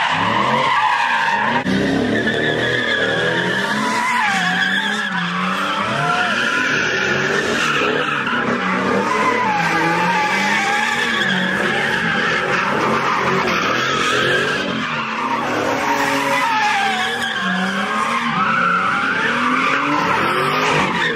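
Car doing donuts: tyres squealing and skidding continuously under wheelspin, with the engine revving and its pitch rising and falling.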